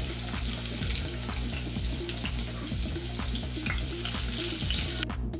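Chopped garlic sizzling and spitting in hot oil with cumin and mustard seeds, a tempering being stirred in a nonstick pan with a silicone spatula. The sizzle cuts off abruptly near the end.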